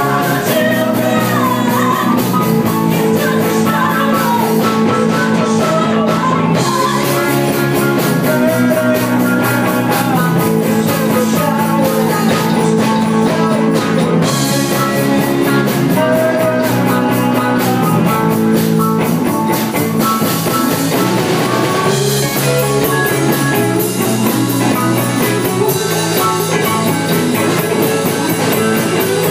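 Live rock band playing: a woman sings lead over a drum kit and the band.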